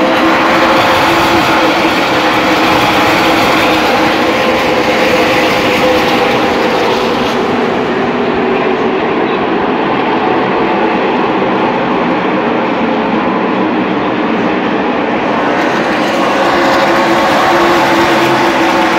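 Field of NASCAR Xfinity Series stock cars running in a pack around the track: a loud, steady, blended V8 engine drone that swells slightly near the end.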